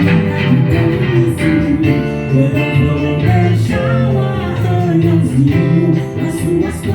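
Band music led by guitar, with bass and a steady beat: an instrumental passage of a Brazilian pop song.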